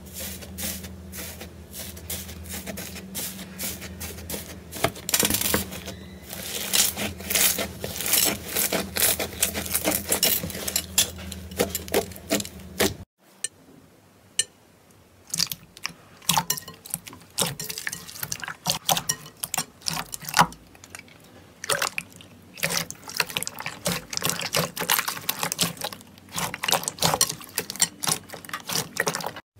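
Hands squishing and pressing clear slime, making many wet clicks, pops and sticky crackles. A low steady hum lies under the first part and cuts off suddenly about halfway through.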